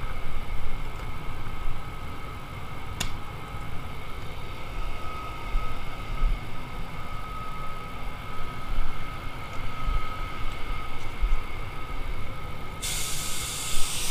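Steady low rumble with a faint constant whine, and a single click about three seconds in. Near the end, a loud even hiss of compressed air begins: the Anest Iwata WS400 Supernova 1.3 spray gun being triggered to spray paint.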